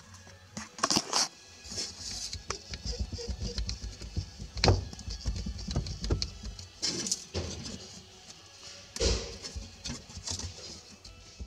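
Hands handling a Citroën 2CV's windscreen wiper motor under the dashboard: irregular clicks, knocks and scraping on metal, with louder clunks about a second in, near the middle, and twice later on.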